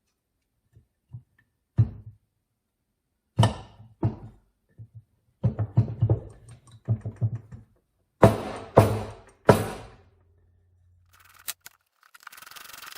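Metal gearbox parts being handled and fitted together on a workbench: scattered knocks and clunks, three loud sharp clanks a little after eight seconds, then a quick run of clicks near the end as the case is bolted up.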